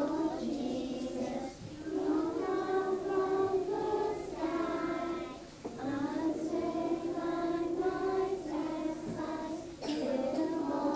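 Young children singing a lullaby together, in held notes, with short breaks between phrases about every four seconds.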